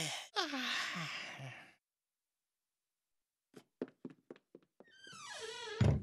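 A cartoon character's long, breathy sighs, two of them with falling pitch. After a short silence come a run of light knocks, then a pitched sound that glides downward and ends in a low thump near the end.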